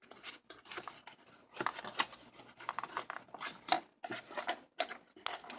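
Irregular rustling, scraping and clicking of a small cardboard retail box and its packaging being handled as the mouse is fitted back into it.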